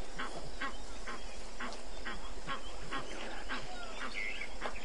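Repeated short animal calls, evenly spaced at about two to three a second, with a few bird chirps near the end.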